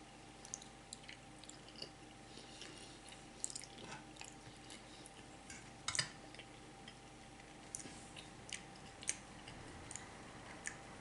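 Faint wet chewing and mouth clicks of someone eating spaghetti, scattered and irregular, with a sharper click about six seconds in.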